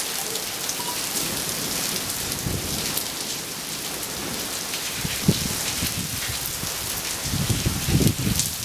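Rain falling steadily during a thunderstorm, with a low rumble of thunder swelling in near the end.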